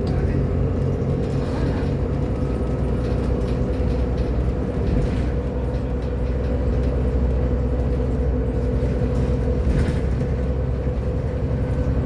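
Irisbus Agora L city bus running, its engine giving a steady low drone.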